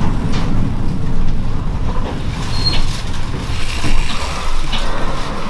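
Train running slowly, heard from inside the carriage: a steady low rumble with scattered light knocks and clicks, and a brief high squeak near the middle.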